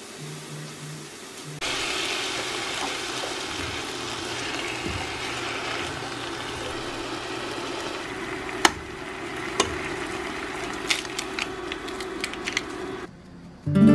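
Diced tomatoes and onions sizzling as they fry in a pan, stirred with a wooden spatula. The sizzle starts about a second and a half in, a few sharp clicks and taps come in the second half, and it cuts off just before the end.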